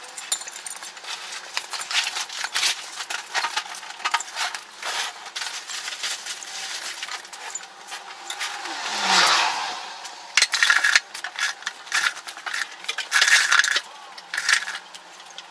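Hard Oga binchotan charcoal briquettes and metal fire-starter parts clinking and rattling as they are handled, with scattered sharp clicks and knocks. A brief rustling swell comes about nine seconds in.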